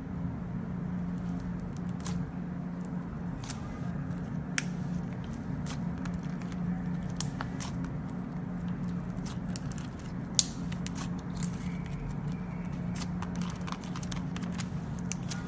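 Slime being squeezed and poked, giving irregular small clicks and pops, over a steady low hum.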